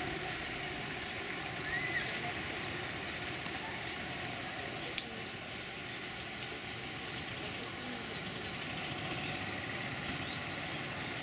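Steady outdoor background hiss with one sharp click about five seconds in.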